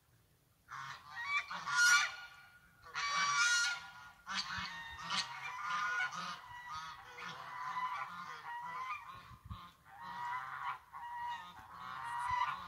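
Goose honking over and over, starting about a second in and going on in bunches of loud calls with short pauses between them.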